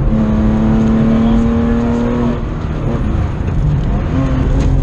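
Race car engine heard from inside the cockpit, held at high revs, then dropping off and wavering about halfway through before the revs climb and hold again near the end.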